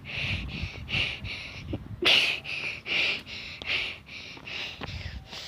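Rapid, heavy panting, about two or three breaths a second: a person out of breath after running.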